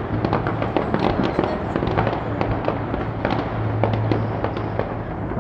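Distant fireworks display: a dense, continuous crackle of many bursts and pops, over a low steady hum.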